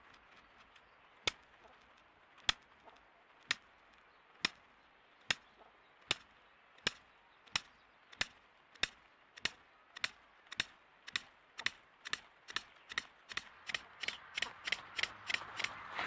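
Male Temminck's tragopan clicking in its courtship display: sharp single clicks, at first about a second apart, speeding up steadily to about four a second.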